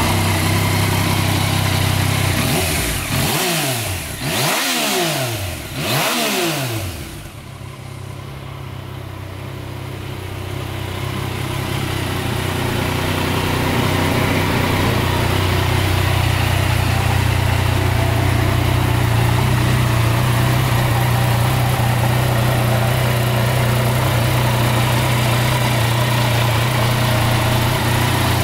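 Yamaha Tracer 900 GT's three-cylinder engine idling, given a few quick blips of the throttle a few seconds in, then settling back to a steady idle.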